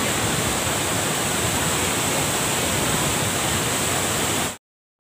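Waterfall rushing, a steady noise of falling water that cuts off suddenly near the end.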